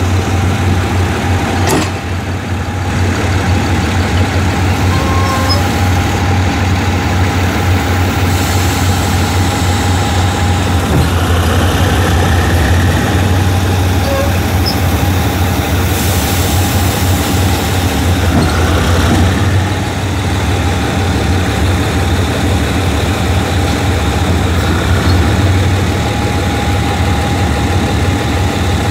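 Diesel engine of a GEK-class diesel-electric locomotive running steadily at close range: a deep, even hum with a steady higher tone over it.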